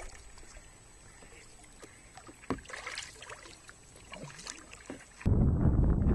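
Kayak paddle dipping into calm river water, with a few soft drips and small splashes. About five seconds in the sound cuts abruptly to loud wind rumbling on the microphone.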